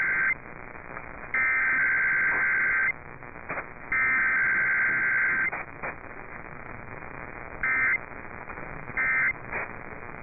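Emergency Alert System SAME data tones: the warbling digital header bursts out as shrill, buzzy chirps, the first ending at the start and two more of about one and a half seconds each following with roughly a second of hiss between them. Near the end come two short bursts of the same tones, the end-of-message code that closes the test. The sound is band-limited and has a broadcast hiss in the gaps.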